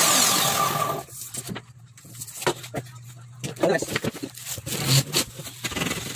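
A power tool working an aluminium sliding-door frame profile, loud and harsh, stopping about a second in. After it come scattered knocks and clatter as the long aluminium frame lengths are handled.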